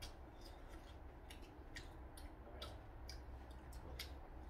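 Faint, irregular light clicks, roughly two a second, of chopsticks and a spoon tapping against bowls and plates while eating.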